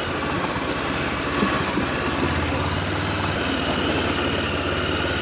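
Honda CB400X's parallel-twin engine running steadily under an even rushing noise.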